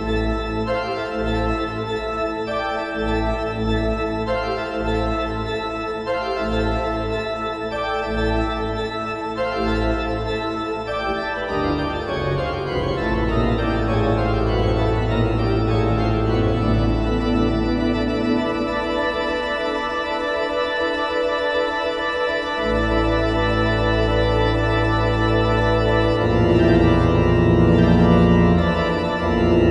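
Pipe organ playing a toccata: dense held chords over a deep pedal bass. About twelve seconds in, fast figures sweep downward. The pedal bass drops out briefly around twenty seconds, and the full sound builds again near the end.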